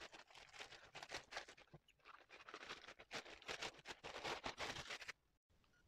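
Plastic poly mailer bag crinkling and tearing as it is ripped open and rummaged through: faint, with many small irregular crackles that stop about five seconds in.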